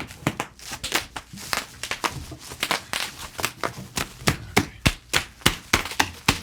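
Bubble wrap being popped: a quick, irregular string of sharp pops, several a second, over plastic crinkling.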